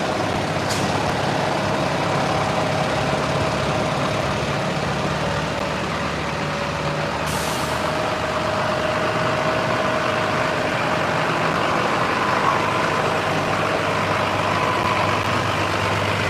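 Diesel farm tractors in a slow convoy drive close past, their engines running steadily. Two short bursts of hiss break through, one just under a second in and a longer one about seven seconds in.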